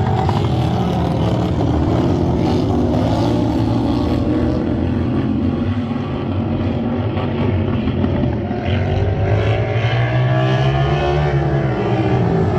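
Racing lawn tractor engines running hard, their pitch rising and falling with the throttle, with a couple of brief dips in level around the middle.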